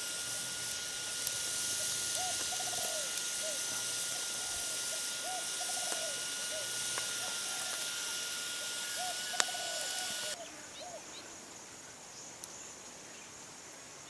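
Outdoor forest ambience: a bird calling in short runs of quick rising-and-falling notes, repeated every second or two, over a steady high-pitched insect drone. The drone cuts off abruptly about ten seconds in, leaving fainter bird calls, and there are a couple of sharp clicks.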